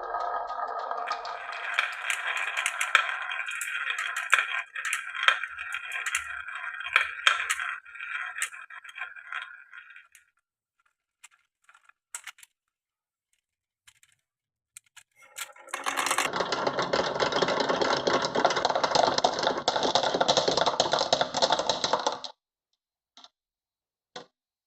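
Marbles rolling and clattering along marble-run tracks, with many sharp clicks, for about ten seconds; after a few scattered clicks, a steady rolling rumble starts about sixteen seconds in and cuts off suddenly about six seconds later, followed by two faint clicks.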